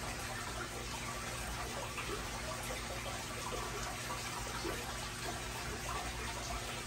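Aquarium water circulating, a steady trickling and splashing of water at the tank with a low hum underneath.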